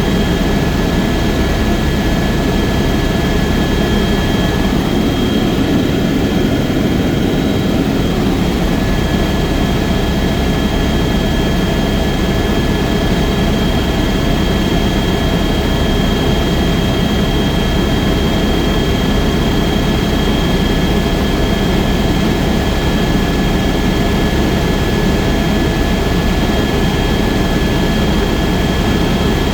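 Helicopter in flight: a steady, loud rotor and engine drone with a constant high-pitched whine over it. One part of the whine briefly fades a few seconds in, then returns.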